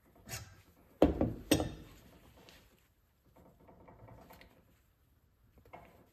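Sheet metal pliers and a drawer-slide bracket knocking against a bench vise as the bracket is bent by hand: a few sharp clicks, the loudest about a second in, and a softer scraping shuffle around four seconds in.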